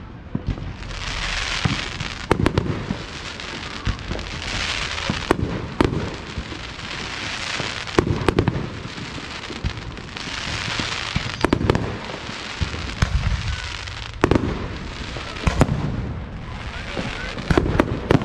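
Aerial fireworks shells bursting in a rapid, irregular string of sharp bangs and deeper booms, with stretches of hiss about a second long between the reports.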